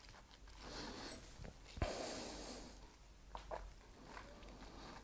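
A person tasting a sip of whisky: quiet breaths out through the nose, a sharp click about two seconds in, and a few faint clicks later.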